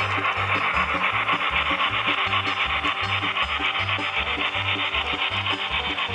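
HO scale model steam locomotive's sound decoder playing fast, even steam chuffing as the engine runs by under power, with low rhythmic thumps two or three times a second underneath.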